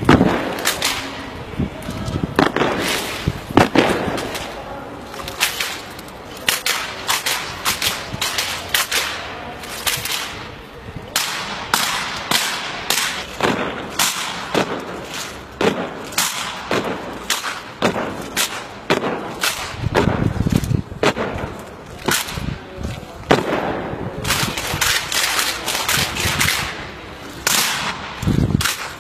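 Squad rifle drill: many sharp cracks as hands slap the rifles and rifle butts and boots strike the pavement in unison, coming singly and in quick clusters at irregular intervals.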